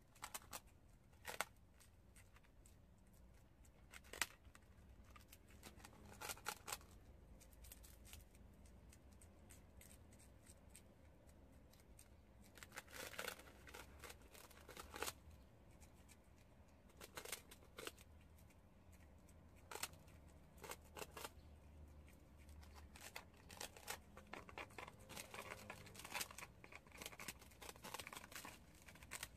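Prairie dogs gnawing on puffed rice cakes: faint, crisp crunching and nibbling clicks in irregular bursts, busiest near the end.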